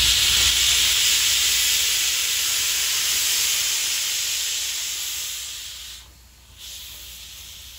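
Steam locomotive 4501, a Southern Railway 2-8-2 Mikado, venting steam in a loud hiss that slowly fades. It drops away sharply about six seconds in, then a quieter hiss carries on.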